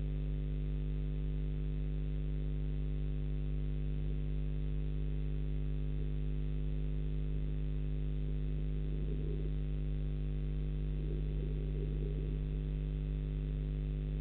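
Steady electrical mains hum made of several fixed tones, carried on the nest-box webcam's audio line. Two faint, brief rustles rise above it about nine seconds in and again around eleven to twelve seconds.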